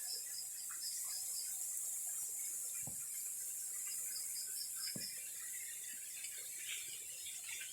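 Outdoor ambience: a steady high hiss with repeated short chirps, like insects or small birds, and two faint low knocks about three and five seconds in.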